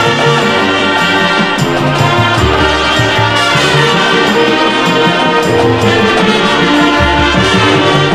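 High school marching band playing, the brass section holding full sustained chords.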